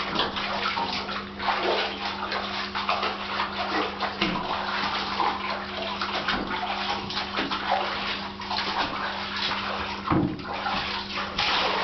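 Bathwater splashing and sloshing irregularly as a Staffordshire bull terrier is washed in a bathtub, hands scrubbing its coat. A steady low hum runs underneath.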